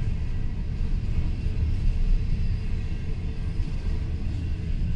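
Double-stack container freight train rolling past: a steady low rumble of the cars going by.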